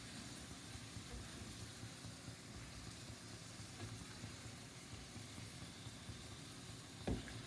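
Besan-battered fries deep-frying in hot oil, a steady sizzle. A single knock sounds near the end.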